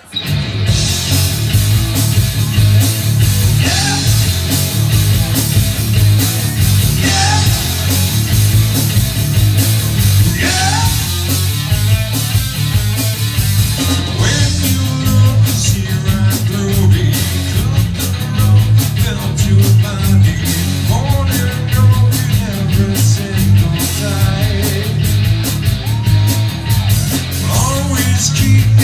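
Rock band playing live at full volume: electric guitars, bass and a drum kit, coming in all at once right at the start.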